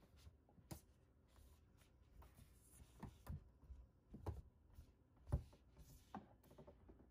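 Faint, irregular soft thumps, taps and scratchy rubbing as a kitten bats, grabs and claws at stuffed cotton-twill catnip toys on wooden boards, with the loudest thump about five seconds in.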